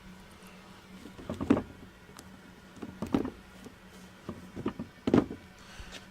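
Handling noises as a sneaker is turned over in the hands: a few soft knocks and rustles, the loudest about one and a half seconds and five seconds in, over a low steady hum.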